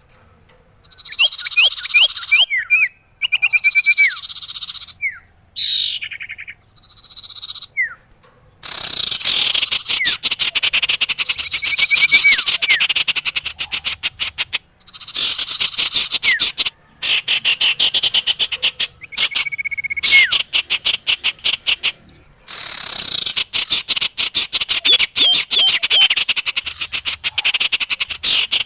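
Lure recording of small songbird calls used for trapping sirtu and common iora (cipoh). It plays in bursts of rapid, buzzy chattering trills mixed with short rising and falling whistled notes, broken by brief pauses.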